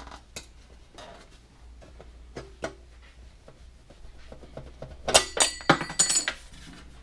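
A sheet-metal knockout being broken out of an electrical panel's cover: a few light clicks, then about five seconds in a quick run of loud metallic clinks with a ringing edge.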